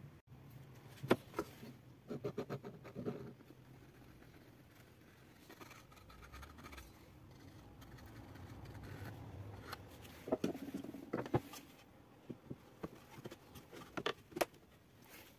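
Light knocks, taps and scraping as small wooden pieces are handled and set against each other on a wooden table, in scattered clusters with quiet between.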